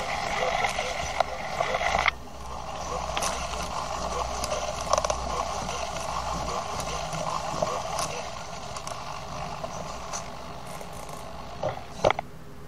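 Hobby servo motors of a small hexapod walking robot whirring and grinding as its legs step, heard close up from a camera riding on its back; the servos' gears are nearly worn out and creak and grind. It is louder for the first two seconds, then drops, with a few sharper clicks near the end.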